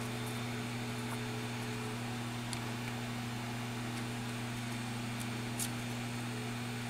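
Steady low electric hum of a bench machine, with a couple of faint light ticks as the metal reballing stencil is handled.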